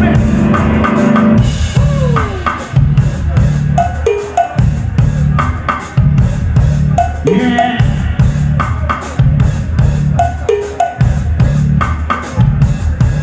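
Live rock band playing an instrumental passage: drum kit beating a steady rhythm under bass and distorted electric guitar, the guitar repeating a figure of sliding, bending notes.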